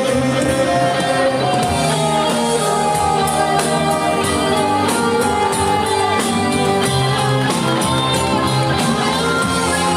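Live band playing a song with a singer, over a steady drum beat.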